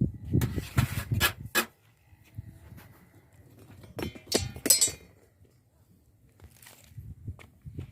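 A few sharp clinks and knocks, in one cluster about a second in and another around four seconds in, over low rumbling handling noise.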